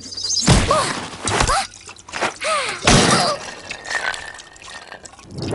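Cartoon sound effects: short squeaky cries that rise and fall in pitch, over noisy crashes and whooshes.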